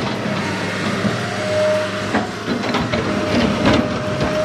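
Steady machine drone with a thin high whine that comes and goes, and a few knocks in the second half as the toy excavator's bucket topples a clay tower.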